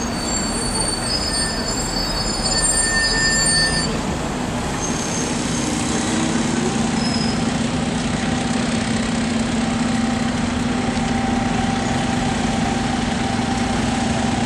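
Tourist road train running, with high squealing tones for the first four seconds, then a steady engine hum.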